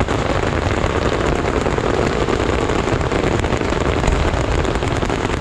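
A row of ground-launched fireworks fountains and comets firing together: a dense, steady hissing rush with constant fine crackling, starting abruptly.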